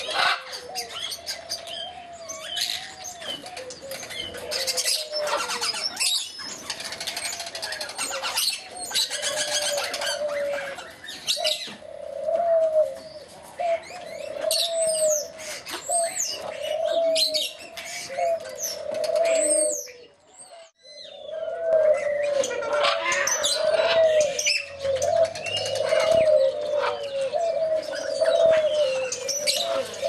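A flock of parrots calling: a steady wavering chatter under many high chirps, whistles and sharper calls, with a brief lull about two-thirds of the way through.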